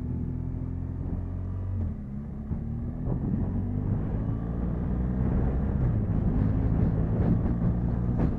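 Motorcycle engine running under way. Its note breaks off briefly about two seconds in, then rises steadily as the bike speeds up. Wind rush over the microphone grows louder and flutters in the later seconds.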